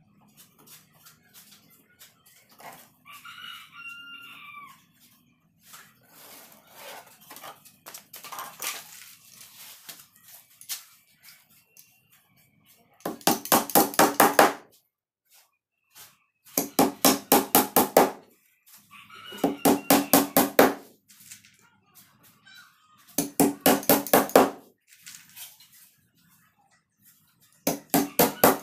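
A hammer beats rapidly on a wooden speaker box in five bursts of about ten quick blows each, starting about 13 seconds in. A rooster crows about three seconds in.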